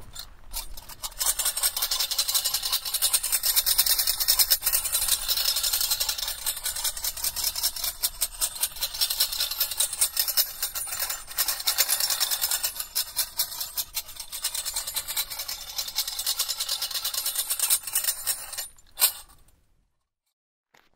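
A sistrum shaken over and over, its metal jingles rattling in a dense, continuous clatter of rapid clicks; it stops abruptly near the end.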